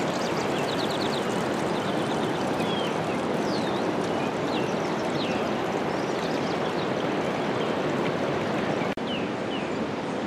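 Steady rush of flowing water, with short high chirps and trills over it; the sound drops out for an instant about nine seconds in.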